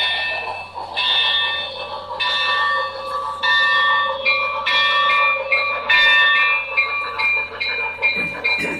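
Electronic bell sounds from a model railroad, ringing steadily in repeated strikes about once a second. From about four seconds in, a second, higher ding joins, sounding two or three times a second.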